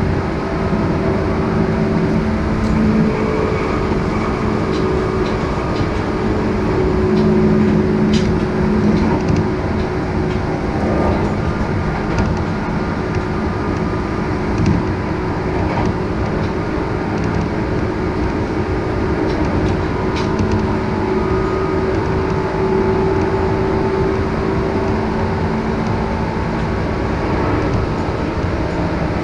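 Tobu 10030 series electric train running at speed, heard from inside the passenger car: a steady rumble of wheels on rail with an even hum at a couple of pitches and a few sharp clicks.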